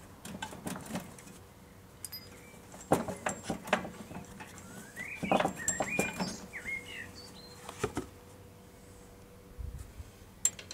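Scattered knocks and rattles as a ride-on mower's rear wheel, its retaining circlip removed, is worked back and forth and slid off its axle stub.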